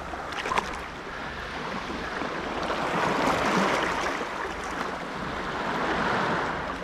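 Waves washing and splashing against shoreline rocks, swelling louder twice.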